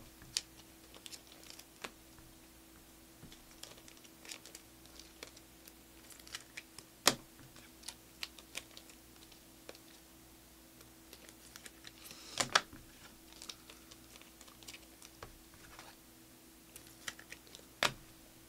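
Optic basketball trading cards being flipped through and sorted by hand: irregular light clicks and snaps of stiff, glossy card stock. A few louder clacks come at about 7 seconds, about 12 and a half seconds, and near the end.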